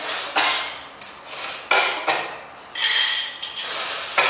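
Two people slurping instant ramyeon noodles: about six short, noisy slurps in quick succession.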